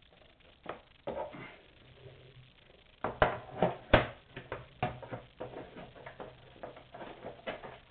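Hard objects being handled and set down: a run of sharp knocks and clatters, loudest about four seconds in, followed by lighter clicks.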